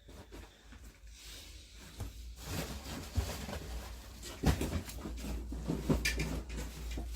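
Rustling handling noise with several sharp knocks over a low rumble, rising in level from about a second in.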